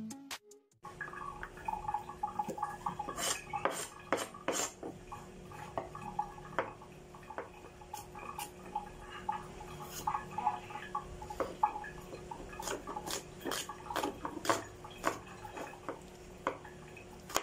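Chef's knife chopping on a cutting board: sharp knocks of the blade striking the board at an irregular pace, several close together at times, over a faint steady hum.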